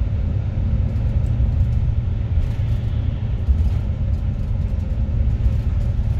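Steady low rumble of a tour bus's engine and tyres heard from inside the cabin as the bus drives along the road.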